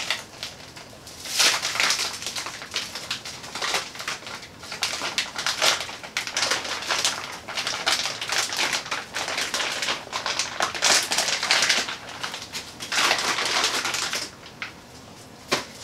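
Plastic vacuum-seal bag around a filament spool being torn open and crinkled by hand, a dense crackling that starts about a second in and stops shortly before the end.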